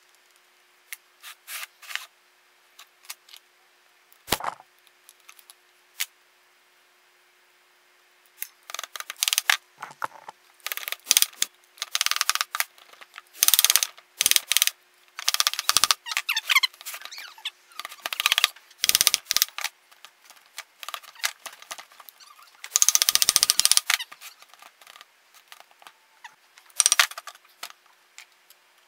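Hand-tool and metal-part noise from dismantling a rusty small engine's pump housing: scattered clicks and knocks, then from about a third of the way in, repeated loud bursts of ratcheting and scraping metal.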